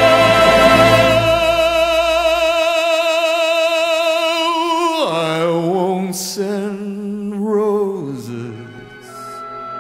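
Background music from a sung ballad: a singer holds a long note with vibrato over the accompaniment. About halfway through the music drops to lower sustained notes, steps down again and fades near the end.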